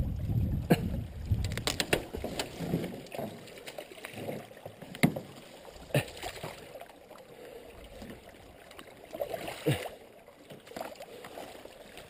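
Canoe knocking and scraping against the sticks of a beaver dam: scattered sharp knocks of paddle and hull on branches, several close together at first and then single ones, with twigs rustling and a short creaking scrape near the end.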